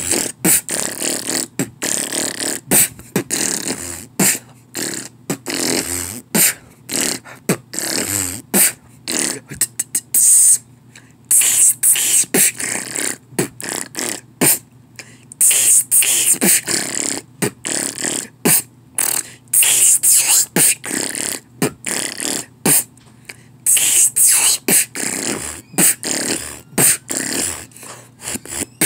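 Freestyle beatboxing: a fast, uneven stream of mouth-made clicks, pops and hissing hi-hat-like bursts, with no words.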